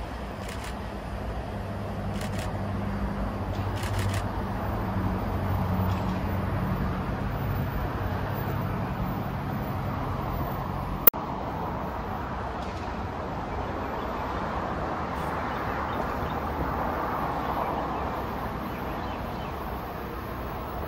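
Outdoor rumble of distant vehicles: a low hum that swells about five seconds in and dies away by about ten seconds, a single sharp click about eleven seconds in, then a steady even background noise.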